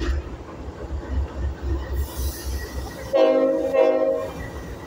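Diesel locomotive air horn sounding a chord of several steady tones for about a second, about three seconds in, briefly broken midway. Before it there is a low rumble.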